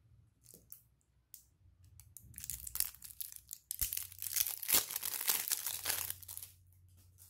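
Clear plastic wrapping crinkling as hands handle and unwrap a squishy toy ball. A few scattered crackles come first, then dense crinkling for about four seconds.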